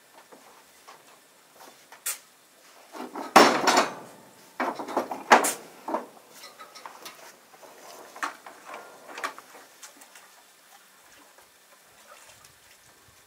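Rough stones being knocked and scraped into place in mortar on a wall. A loud burst of scraping and clatter comes about three seconds in, then a few sharp knocks near five seconds and lighter taps later.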